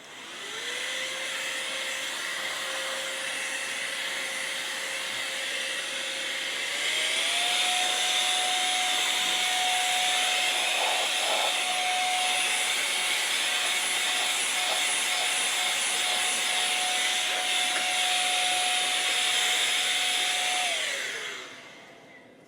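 A small high-speed electric fan motor, as in a vacuum or electric duster used to clear dust, switches on with a steady whine and a hiss of moving air. About seven seconds in it steps up to a higher, louder speed, and near the end it is switched off and winds down.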